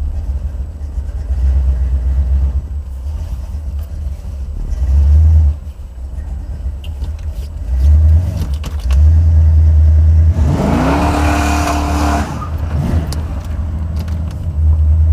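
Buick Stage-1 455 V8 rumbling at low speed, then about ten seconds in a hard launch in first gear: the engine note rises and the rear tyres spin and squeal for about two seconds as the car slides sideways, before it settles back to a low rumble.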